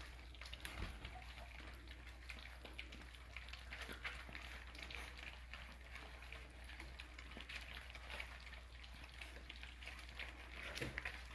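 American bully puppies eating wet food mixed with goat milk: many faint, quick wet smacks and laps that run together like a light crackle.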